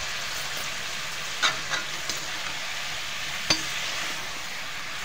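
Chicken pieces sizzling steadily as they fry on high heat in a kadhai. A metal perforated spatula knocks against the pan a few times, about one and a half and three and a half seconds in.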